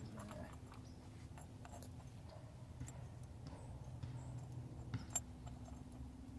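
Faint, scattered small clicks and taps of hand tools and steering-hub parts being handled, over a low steady hum.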